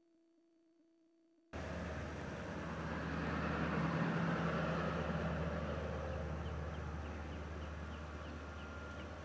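Near silence with a faint hum, then, after a sudden cut about a second and a half in, outdoor background noise: a steady low hum and hiss that swells and slowly fades, with faint short chirps midway.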